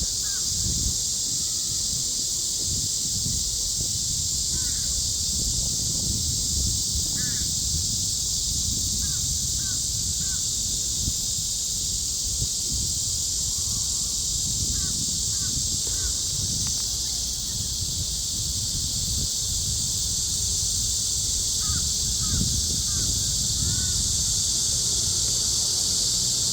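Cicadas droning in a dense, unbroken high-pitched chorus. Short bird calls come through now and then, over a low rumble.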